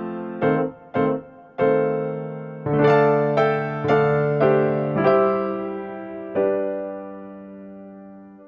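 Piano background music: a run of struck notes and chords, then two long chords left to die away. It cuts off abruptly at the very end.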